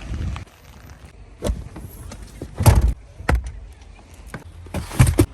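A series of irregular knocks and thumps, about six of them, the loudest near three seconds in and just after five seconds.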